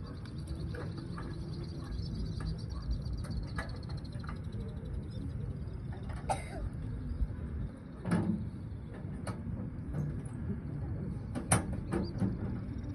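Open-air crowd ambience with a steady low rumble and a faint high steady buzz, broken by scattered short clicks and knocks, the sharpest one about a second and a half before the end.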